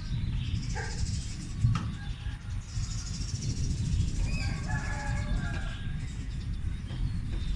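Steady low rumble like distant thunder, running on without a break; the source of this long-lasting rumble is unexplained.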